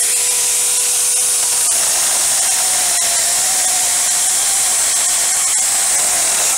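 Handheld cordless mini chainsaw running steadily while its chain cuts a notch into a wooden board. Its buzz dips slightly in pitch about two seconds in.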